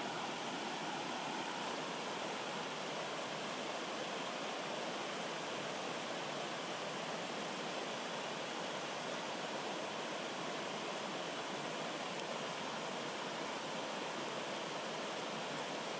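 Rocky stream running steadily over small cascades, an even rushing and babbling of water.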